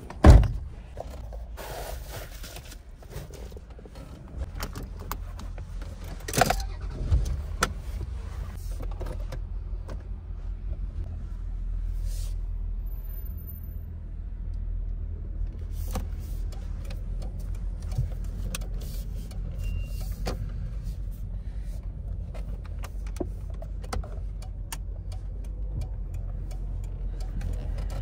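A car driving, heard from inside the cabin: a steady low engine and road rumble. A loud sharp thump comes right at the start, and a few smaller clicks come about six to seven seconds in.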